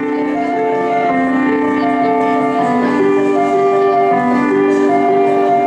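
Electronic keyboard playing a slow melody over held chords, the notes sustained and overlapping, swelling slightly in loudness over the first few seconds.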